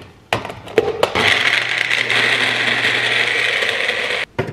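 Magic Bullet personal blender running for about three seconds as the cup is pressed down onto the base, blending frozen mango, banana, spinach and pineapple juice, then cutting off suddenly. A few knocks come just before the motor starts, as the cup is seated on the base.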